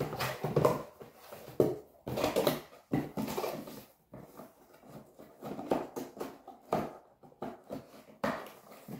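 Cardboard box and packaging being handled: an irregular run of rustles, scrapes and light knocks as the box and its contents are turned over and moved.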